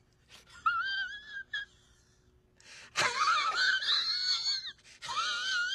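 High-pitched, wavering wheezing squeals that wobble up and down in pitch, in three bouts: a short one early, a louder, longer one about three seconds in, and another near the end.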